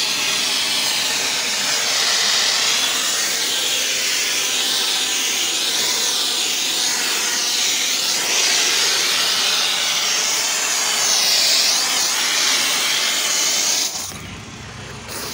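Pressure washer's high-pressure water jet spraying, a loud steady hiss whose tone sweeps up and down as the spray moves. It drops away suddenly about 14 seconds in.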